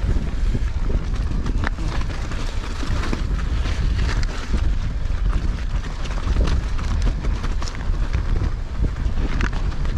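Wind buffeting a chest-mounted action camera's microphone as a mountain bike rolls over a rough stony track, with a steady stream of small clicks, knocks and rattles from the tyres and bike.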